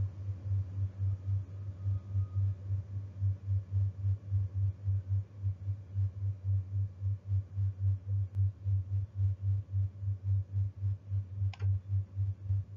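Low, pulsing timer beat, about three to four even pulses a second, which counts off thinking time and cuts off suddenly at the end.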